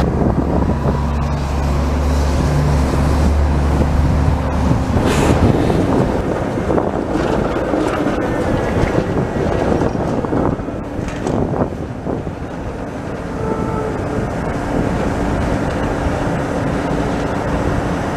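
Articulated TTC streetcar (ALRV) rolling past close by on wet track, its wheels rumbling with several sharp clunks as they cross the rail switches. A steady low hum runs through the first four seconds or so.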